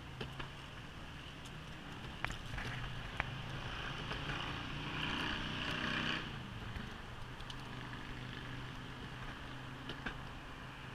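Evolve Bamboo GTX electric skateboard riding on a concrete path: a steady hum of motors and wheels with wind noise, and a few sharp clicks as the wheels cross pavement joints. The hum swells in the middle and drops off suddenly about six seconds in.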